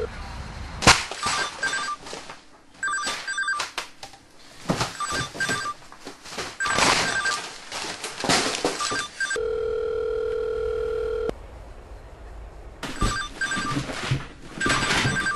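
A phone ringing with a repeating electronic trill while someone rummages frantically through piles of paper, comic books and clutter, rustling and clattering, with a loud crash about a second in. About nine seconds in, a steady telephone ringback tone sounds for about two seconds.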